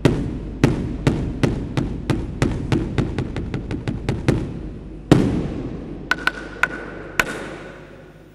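Mosque bedug drum beaten in strokes that speed up into a fast roll. After a pause comes one heavy stroke that rings on, then a few lighter taps over a faint steady tone. This is the traditional drum signal before the call to prayer.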